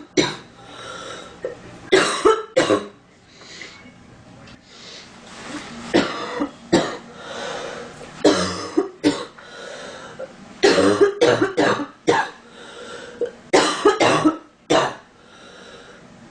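A girl coughing over and over, a dozen or so short, sharp coughs, some in quick clusters, with breathing between them. She is stuffed up.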